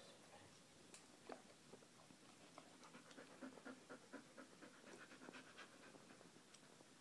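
Small dog panting faintly in quick, short breaths.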